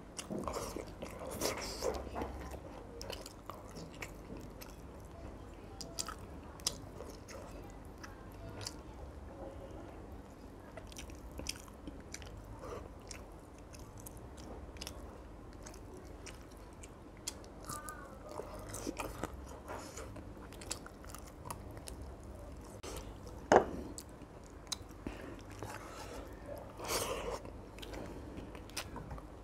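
Close-miked eating sounds: chewing, with fingers picking apart fried fish and working it into rice. Many small clicks and soft squishing throughout, and one sharp click late on.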